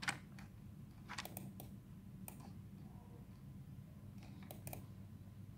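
Faint, irregular clicks of a computer being operated while scrolling through a web page, a few single clicks and a quick cluster near the end, over a low steady hum.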